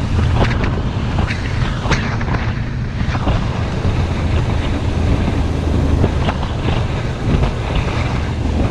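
Suzuki V-Strom motorcycle running steadily at road speed, with wind rushing over the microphone and a few short knocks.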